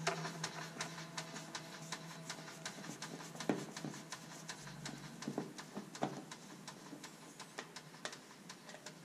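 Hand screwdriver driving a self-tapping screw into the steel sheet metal of a car door, cutting threads in a freshly drilled hole: a steady run of light clicks, about three or four a second.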